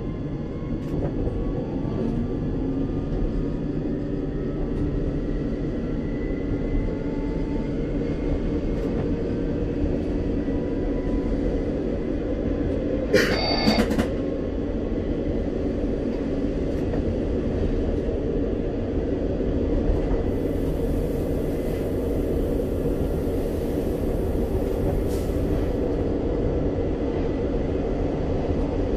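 Regio 2N electric train heard from the driver's cab, running along with a steady rumble and a faint whine that rises in pitch over the first several seconds. About 13 seconds in there is a brief, loud, sharp sound with several ringing tones.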